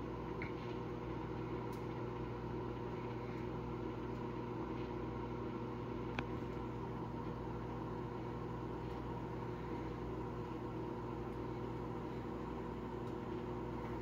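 Microwave oven running with an aluminum food tray inside: a steady hum of its magnetron and fan, with no crackle of arcing from the metal tray. One faint tick about six seconds in.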